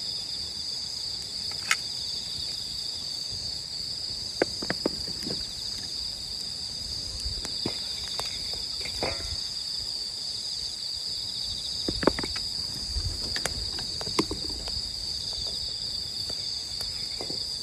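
A steady, high-pitched chorus of insects trilling without a break, with a pulsing chirp just beneath it. A few sharp clicks and knocks are scattered through it, the loudest about two-thirds of the way in.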